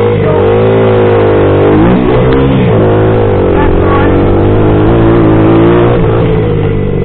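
2000 Honda XR80R dirt bike's small four-stroke single running hard, its pitch dipping and rising again a few times as the throttle is rolled off and back on.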